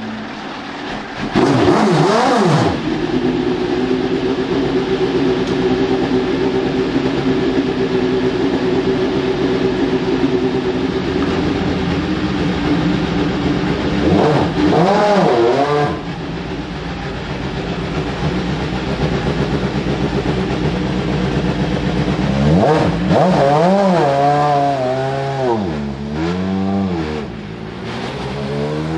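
Audi A4 DTM race car's naturally aspirated 4.0-litre V8 idling and being revved. There is a sharp blip about two seconds in, a steady idle, another blip around the middle, a run of several quick blips later on, and the revs climb steadily near the end.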